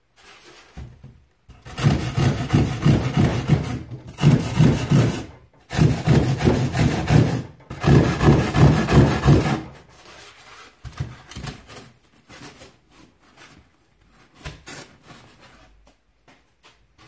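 Surform rasp filing the edge of a rigid foam insulation board in fast back-and-forth strokes, in four bouts over about eight seconds. Then lighter knocks and rubbing as the foam piece is handled.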